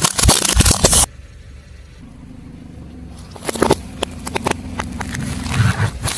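A car tyre rolls over brittle objects and crushes them: a loud burst of dense crackling and snapping for about a second, which cuts off suddenly. After that the car's engine runs steadily under the rest, with more cracks and snaps as things break under the wheel, a cluster about halfway through and another near the end.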